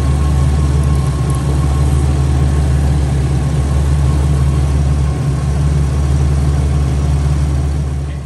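Chevy Venture's 3.4-litre V6 idling steadily, warmed up to temperature for bleeding air from the cooling system; the sound fades out near the end.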